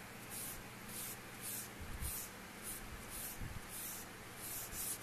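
Tissue paper rubbed back and forth over oil pastel on paper to blend the colours: a rhythmic rubbing swish, about two strokes a second.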